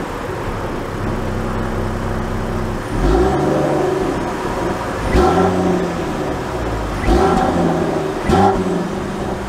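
Land Rover Defender's inline-six engine idling with the car stationary and revved four times, each rev rising and falling in pitch. Heard from outside the car, beside the wheel.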